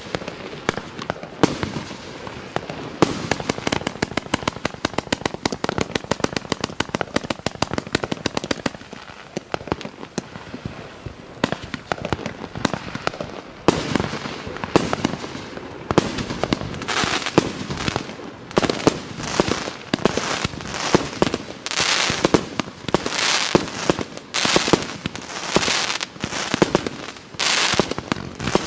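A 132-shot fan-pattern, mixed-calibre fireworks cake firing a rapid, continuous string of shots and bursts. Around the middle the shots give way to longer hissing bursts, a fraction of a second each, coming in quick succession.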